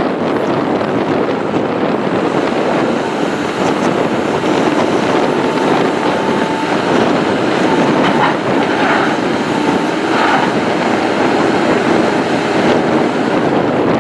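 JCB 3CX backhoe loader's diesel engine running with a steady, loud mechanical drone, and a faint thin whine partway through.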